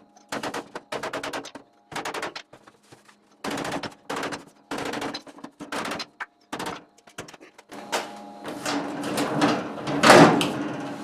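Rapid hammer blows on the sheet-steel body of a tool chest cabinet, coming in quick bursts of several strikes with short pauses between them, as the bent box is beaten back into square. In the last few seconds the banging turns denser and louder, with one heavy hit near the end.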